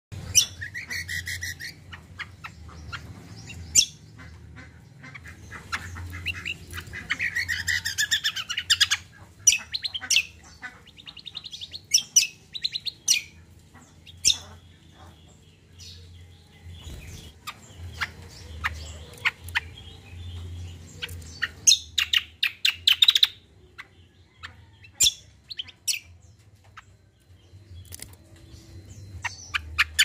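Caged kacial songbird singing in bursts of varied chirps and quick chattering runs of notes, with short pauses between phrases.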